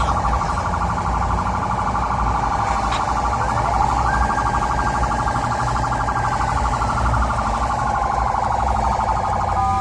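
Electronic emergency-vehicle sirens. One sounds a rapid warble throughout; a second tone sweeps up about four seconds in, holds high for a few seconds, then slowly falls.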